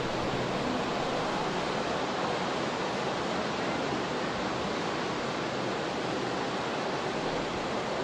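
North Sea surf breaking along the beach: a steady, even rush of water noise with no single wave crash standing out.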